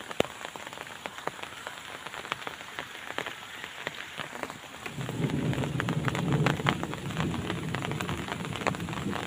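Rain falling on river water and leaves, a steady hiss full of fine drop ticks. About five seconds in a lower rumble joins and the sound grows louder.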